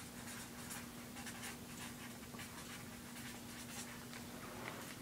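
Faint scratching of a marker writing by hand, in many short quick strokes, over a steady low hum.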